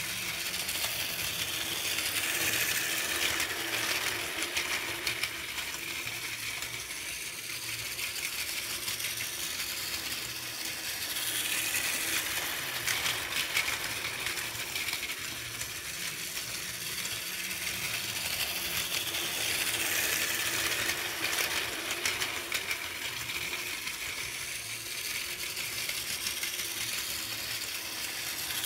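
Battery-powered Plarail toy Shinkansen trains running on blue plastic track: a steady whirring of small motors and gears with fine, rapid clicking of wheels over the track joints. It swells each time a train passes close, about every eight seconds.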